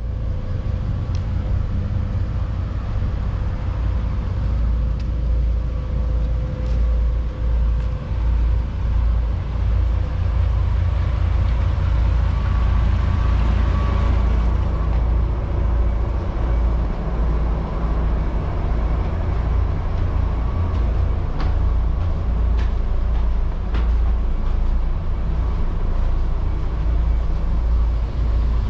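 A motor running steadily: a deep rumble with a faint constant hum over it, and a few light clicks.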